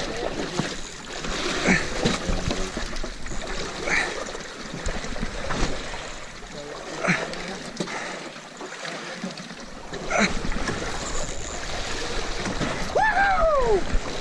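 Water sloshing and splashing around a small fishing boat, with short sharp sounds every second or two. A falling, whistle-like cry comes near the end.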